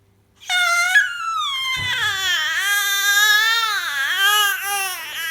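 A baby's long, drawn-out wailing vocalization, high-pitched and wavering as it slides down and back up, starting about half a second in.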